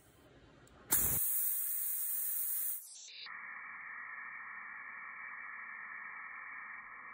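Plasma cutter firing up and cutting steel bar. A loud hiss of the torch's air and arc starts suddenly about a second in, then settles after about two seconds into a steady, duller hiss as it cuts.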